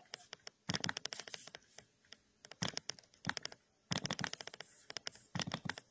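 Quick clicking and tapping on a laptop, in four short bursts of rapid clicks with brief pauses between.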